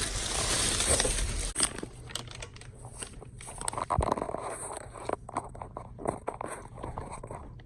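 Packaging being torn open and handled: loud crinkling and rustling for the first second and a half, then scattered small crackles and clicks.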